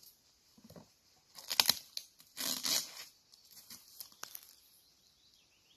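Transport box being cut open: two tearing sounds, a short one about a second and a half in and a longer one just after, then a few faint clicks.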